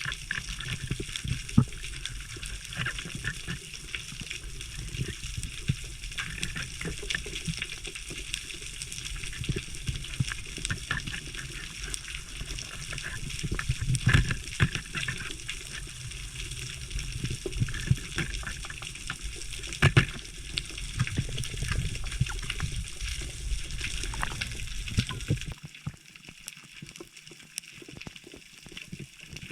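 Water rushing and sloshing around the microphone, with many scattered sharp clicks. The low rumble cuts out suddenly near the end.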